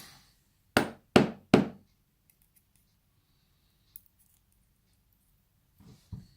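Three sharp metallic knocks in quick succession, each ringing briefly, with a few faint clicks afterwards: a lock being tapped to shake loose a pin that is stuck inside it.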